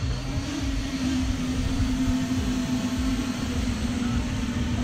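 Radio-controlled model helicopter in flight, its rotor and motor giving a steady whirring hum that holds one pitch.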